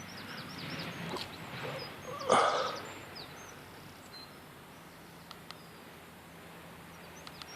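Faint outdoor background with small birds chirping now and then, and a brief breathy rush of noise about two seconds in.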